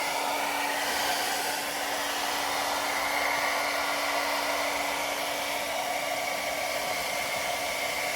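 An electric blower running steadily: an even rush of air with a constant low hum underneath.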